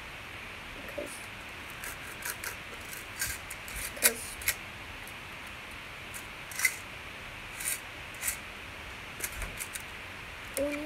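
Light metallic clicks and scrapes of bobby pins in a small hinged metal tin being handled, scattered irregularly, with the sharpest click about four seconds in.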